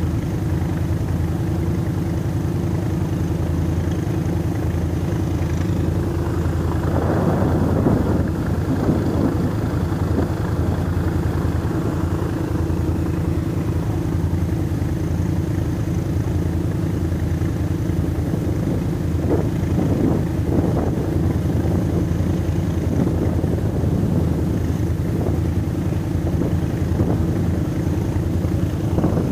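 ATV engine idling steadily close by, with stretches of rougher rushing noise about seven seconds in and again around twenty seconds in.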